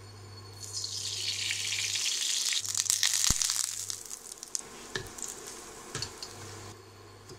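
Ghee sizzling in a hot nonstick frying pan: a hiss that swells, peaks about three seconds in and dies away, followed by a few light taps and scrapes of a wooden spatula stirring semolina in the pan.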